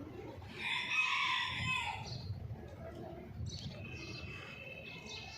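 A chicken gives one loud drawn-out call of about a second and a half that drops in pitch at the end, followed by fainter short calls.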